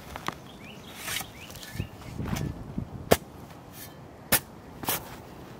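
A metal shovel digging into soil. There are several sharp scrapes and knocks as the blade is driven in and strikes dirt and roots, and a longer crunching rustle of earth being lifted and shifted about two seconds in.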